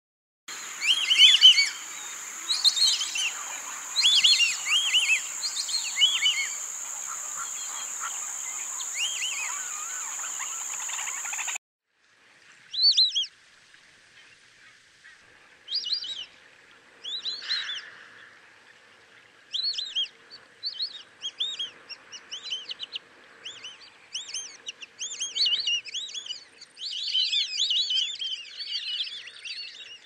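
White-faced whistling ducks calling: many short, clear, high whistles, often in quick groups of two or three. For the first eleven seconds a steady high-pitched tone runs under them and cuts off abruptly; after the cut, juvenile whistling ducks whistle in brief bursts that come thicker toward the end.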